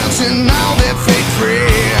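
Rock music with a singing voice and a steady drum beat, in the grunge or punk style.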